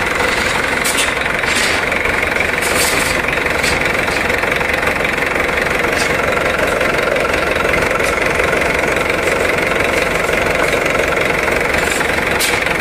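Mitsubishi Canter truck's diesel engine idling steadily, with a few short faint ticks over the top.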